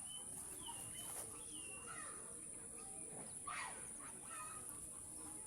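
Birds calling faintly in the open, a series of short falling chirps with scattered other calls, over a steady high-pitched hiss.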